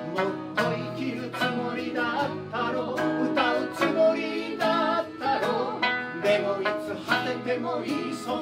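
Live acoustic folk-rock band playing: a man singing lead over a strummed acoustic guitar, a plucked sanshin and an accordion.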